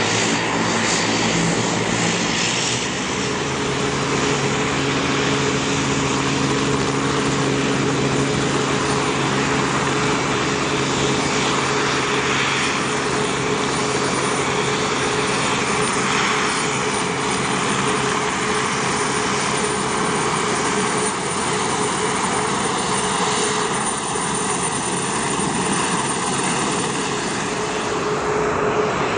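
Twin turboprop engines of an ATR cargo plane running at taxi power: a steady propeller drone made of several held tones under a dense, even rush of turbine and propeller noise.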